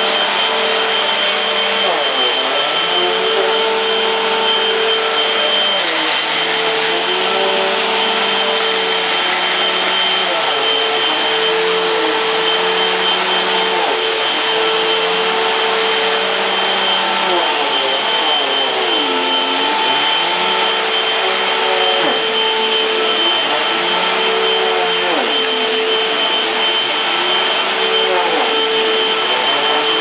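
Dirt Devil ReAction D2 bagless upright vacuum cleaner running steadily on carpet: a constant motor whine and rush of air, with a lower note that dips and rises every couple of seconds.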